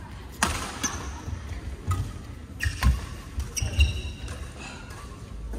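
Badminton doubles rally: several sharp cracks of rackets striking the shuttlecock, with players' shoes thudding and squeaking on the court floor.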